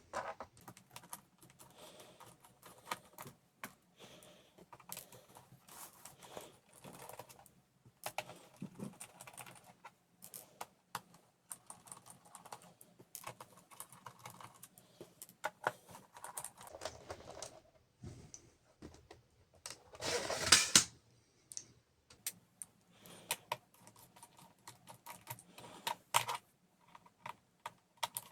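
Small screws being unscrewed from the plastic bottom case of a Lenovo IdeaPad 330 laptop with a screwdriver: light irregular clicks and ticks of the driver and screws against the case, with a louder, longer rattle about two-thirds of the way through.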